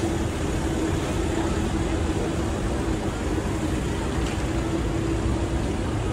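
Minibuses of a slow motorcade passing close by: steady engine and road noise with a held engine drone.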